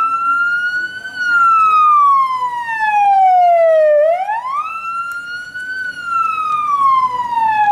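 Electronic siren wailing: the tone climbs quickly, then slides slowly down over about three seconds before climbing again, twice.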